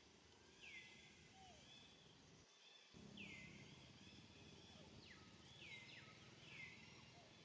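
Faint forest ambience with a bird repeatedly giving short calls that sweep down in pitch, about one every second or two, over a steady soft hiss.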